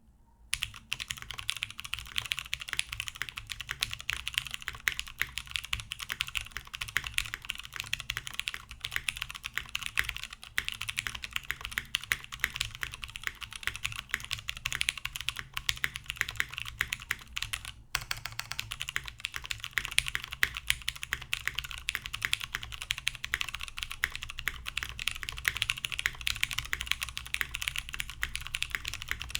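Continuous typing on a top-mounted mechanical keyboard with lubed vintage Cherry MX Clear tactile switches on an aluminum plate, with no foam dampening and BSP keycaps: a dense stream of keystroke clacks with a brief break a little past halfway.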